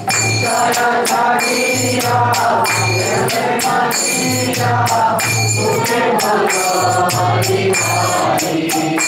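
Devotional kirtan: a group of voices sings a line of a Bengali Vaishnava song in response to the leader, over hand cymbals struck in a steady, quick rhythm.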